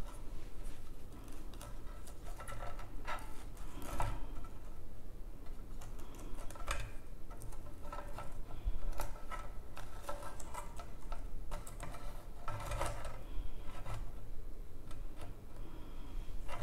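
Dried Bismarck palm fruit stalks being handled and arranged in a shallow container: irregular light clicks, taps and rustles as the stiff stems knock against each other and the container.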